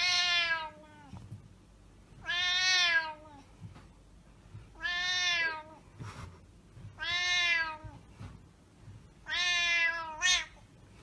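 A cat meowing over and over: five long, drawn-out meows about two seconds apart, each dropping in pitch at the end, with a short meow right after the last.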